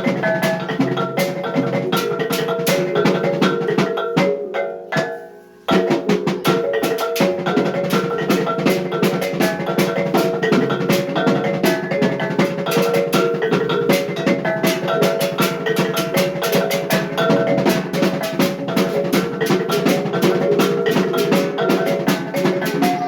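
Maguindanao kulintang music: a row of small tuned gongs struck in a fast, dense melody over rapid drum beats. About four seconds in it fades out briefly, then starts again abruptly.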